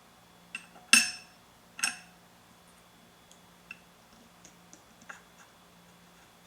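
Small metal clinks and ticks as screws and a screwdriver knock against the Mazzer Mini's lower burr and burr carrier while the bottom burr is screwed back in. There are three sharp clinks in the first two seconds, the loudest about a second in, then a run of faint ticks.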